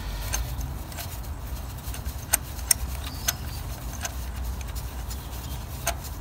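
Scattered faint metallic clicks from a spark plug socket and extension as a new spark plug is threaded into the cylinder head by hand, over a steady low rumble.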